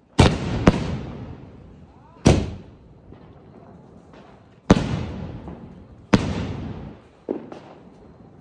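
Aerial shells from a 24-shot fireworks cake bursting overhead: about six sharp bangs a second or two apart, each dying away over a second or so.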